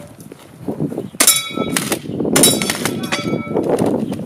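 Airsoft shotgun shots at steel plate targets, the plates clanging and ringing as they are hit. After a quieter first second come several sharp reports in quick succession, some with a lingering metallic ring.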